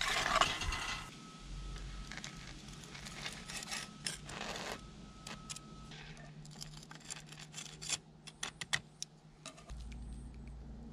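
Metal utensils scraping and clinking against a frying pan on a camp stove, then a run of quick sharp clicks and rasps from a pepper grinder.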